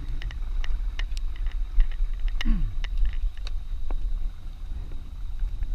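Knocking and handling noise aboard a small fishing boat: scattered light clicks and knocks over a constant low rumble, with a short falling creak about two and a half seconds in.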